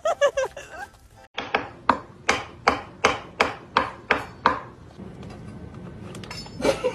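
A run of about nine sharp, evenly spaced knocks, nearly three a second, each ringing briefly, stopping a little past halfway.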